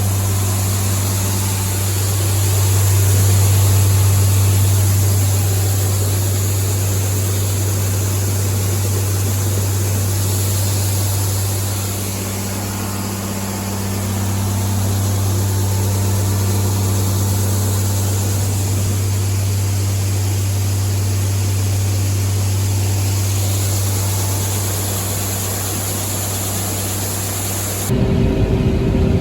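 Loud, steady drone of farm machinery used to put a wagon of corn into the bin, with a strong low hum that eases briefly about twelve seconds in. Near the end it changes abruptly to a different engine sound.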